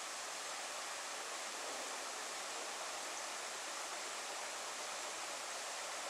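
Steady, even rushing hiss with no distinct events.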